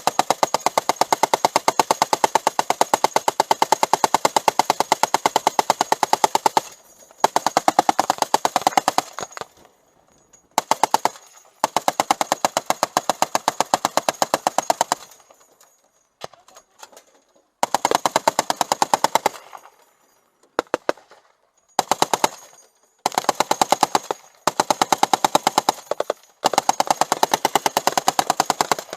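Machine gun firing long bursts of rapid, evenly spaced shots, the first lasting over six seconds, the rest shorter, with brief pauses between them.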